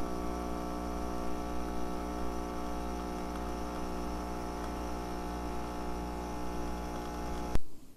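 Tassimo pod coffee machine brewing: its pump hums steadily as coffee streams into a mug, then cuts off suddenly near the end.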